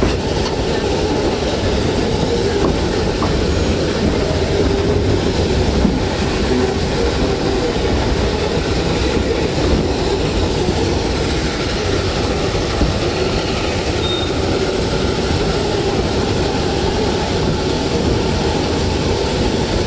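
Narrow-gauge train running steadily, heard from aboard: the continuous rumble and rattle of the cars rolling on the rails, with the two-truck Shay geared steam locomotive working at the head of the train.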